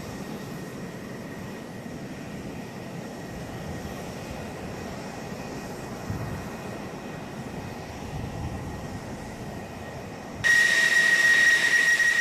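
Aircraft engine running steadily. About ten seconds in, the sound jumps louder, with a high, steady turbine whine.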